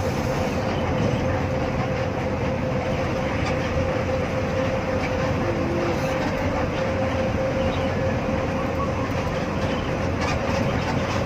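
Cabin noise of an intercity coach cruising on the highway: a steady rumble of engine and tyres with a constant whine held throughout.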